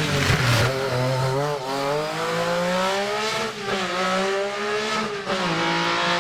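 Rally car engine accelerating hard through the gears: each pull climbs in pitch and drops sharply at the next upshift, about every two seconds.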